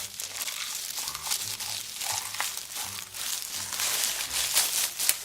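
Close-miked crinkling and crackling of fake, non-food items in an ASMR mukbang, with many small sharp clicks throughout.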